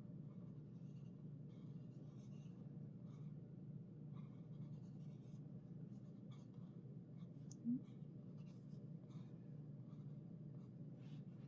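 Fine-tip Pitt artist pen drawing on watercolour paper: faint short scratchy strokes over a steady low hum. About three quarters of the way through comes a single brief rising squeak, the loudest sound here.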